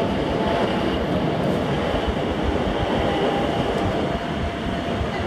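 Bernese Oberland Railway electric train rolling slowly into its terminus platform, a steady rumble of wheels and running gear, easing slightly near the end.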